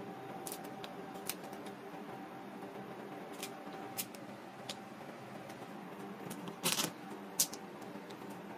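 Crab leg shells being snapped apart by hand and cut with a knife on a cutting board: scattered sharp clicks and cracks, with a short louder crackling burst and one more sharp snap near the end, over a steady low background hum.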